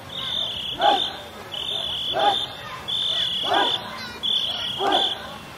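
A pace-setting whistle on a racing dragon boat, blown in a repeating long-then-short pattern about every one and a half seconds, each cycle met by a short rhythmic shout from the paddling crew to keep the stroke.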